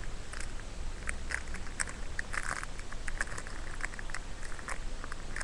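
A squishy toy being squeezed and handled in the fingers close to the microphone: irregular soft crackles and clicks.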